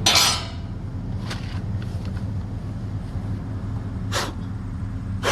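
Steady low mechanical hum, with a few short sharp knocks or scrapes from work on the machine: one loud at the start, then others about a second in and about four seconds in.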